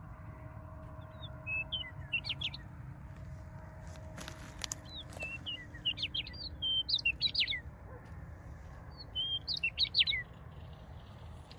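A songbird singing three short phrases of quick, sweeping high notes, with pauses between them, over a steady low background rumble.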